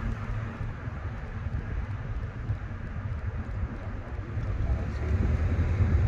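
Car driving along: steady low rumble of engine and tyre noise heard from inside the vehicle.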